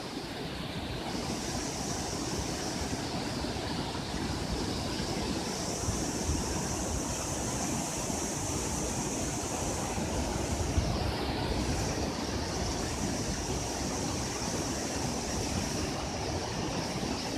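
Steady rush of water in heavy rain: a dense, even hiss with a low rumble underneath.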